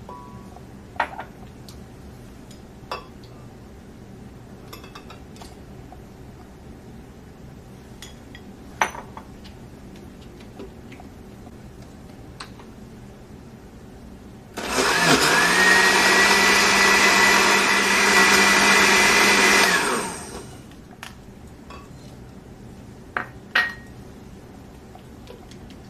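Hamilton Beach 58148A blender's 700-watt motor running for about five seconds, spinning up quickly to a steady whine and then winding down, as it blends milk and ice cream in its glass jar. A few short sharp knocks and clicks come before it and two more near the end.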